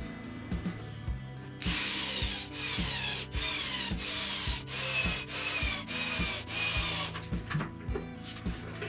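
Cordless drill driving a screw into wood. It runs for about five seconds, starting just under two seconds in, over background music with a steady beat.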